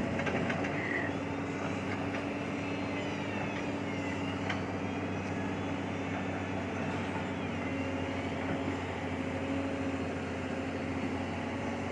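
Large hydraulic excavator's diesel engine running steadily, with a faint higher whine that rises and falls a few times.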